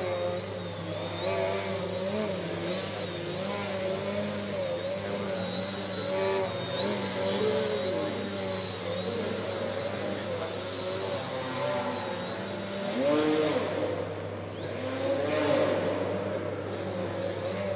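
Electric motor and propeller of a small foam 3D aerobatic RC plane (Laser Z2300), its whine rising and falling in pitch with constant throttle changes as it hovers and tumbles.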